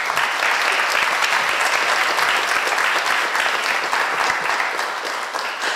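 Audience applauding, many hands clapping steadily and easing off slightly near the end.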